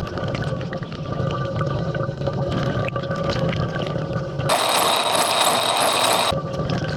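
LG dishwasher rinsing, heard from inside the tub: the pump hums steadily under splashing spray water. About four and a half seconds in, a louder hiss of spray lasts nearly two seconds, then stops suddenly.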